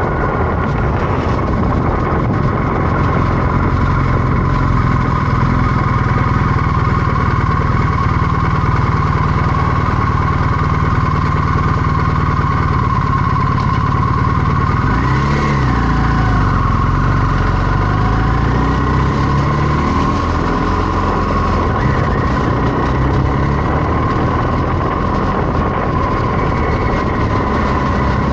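BMW R1250GS boxer-twin motorcycle engine running steadily while riding. About halfway through, the engine note dips briefly and climbs back.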